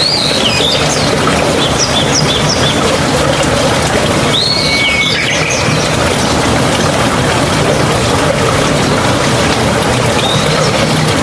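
Steady rushing of a mountain stream, with songbirds chirping over it in short bursts: near the start, a little before halfway, and again near the end.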